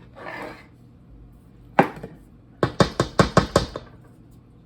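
Serving spoon knocked against the rim of a bowl of macaroni salad: one sharp knock, then a quick run of about six knocks, shaking the salad off the spoon.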